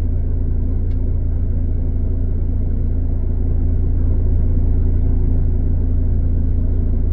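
Vehicle engine idling with a steady low rumble.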